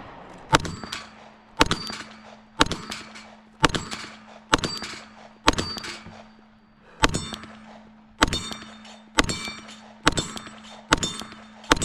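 Pistol shots from a Glock fired at a steady pace, about one a second, roughly a dozen in all. Each shot is followed by the ringing clang of a steel target being hit.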